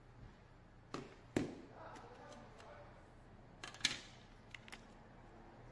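Cardboard phone box and its paper inserts being handled: a few sharp taps and clicks, the loudest about a second and a half in and a quick cluster near four seconds, with light rustling of card and paper between.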